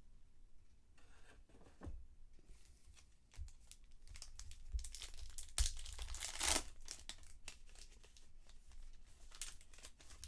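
Plastic trading-card pack wrappers being torn and crinkled while the cards are handled: a run of short, scratchy rustles and tears, busiest and loudest about halfway through.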